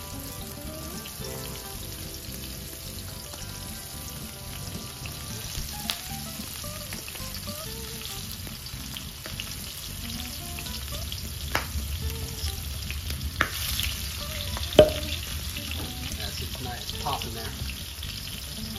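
Flour-dusted, shell-on shrimp sizzling steadily as they fry in shallow olive oil in a stainless steel skillet, with a few sharp clicks, the loudest about fifteen seconds in.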